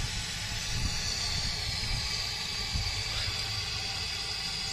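Steady hiss with a low rumble underneath from the wood-fired boiler of a scale-model Case steam traction engine as it raises steam.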